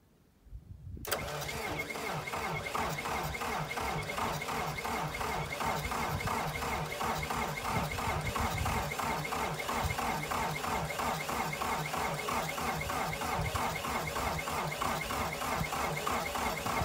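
Belarus MTZ-52 tractor's engine cold-starting in sub-zero temperatures. A brief cranking, then it catches about a second in and runs on steadily with an even, rapid beat.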